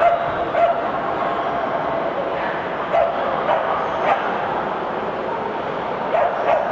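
Small dogs barking and yapping in scattered short bursts, over the steady murmur of a crowd in a large hall.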